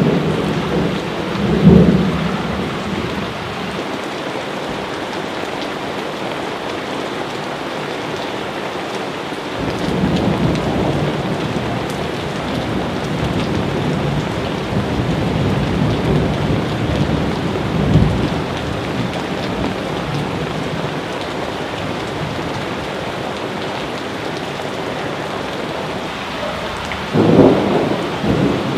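Steady heavy rain with rolls of thunder: loud thunder rumbles just after the start and again near the end, and a longer, softer roll through the middle.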